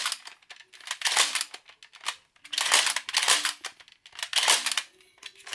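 Plastic clicking and clattering from a Nerf Flipfury blaster's barrel-flip mechanism being worked by hand, in three short bursts; the flip action is stiff.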